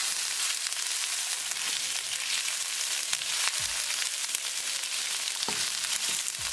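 Sliced onion, ginger, garlic and green chili sizzling steadily in hot olive oil in a wok, stirred with a wooden spatula that gives scattered light scrapes and taps against the pan.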